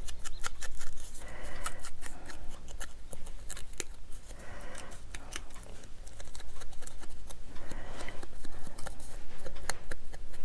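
Hands working paper on a craft table: many small clicks and taps, with a scratchy rubbing against paper about every three seconds.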